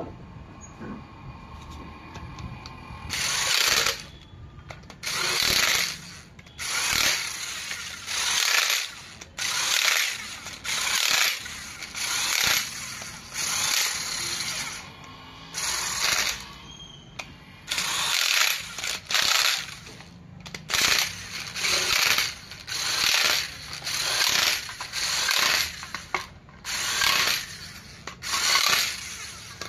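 A power tool running bolts in during engine assembly, in repeated short bursts about once a second, starting a few seconds in.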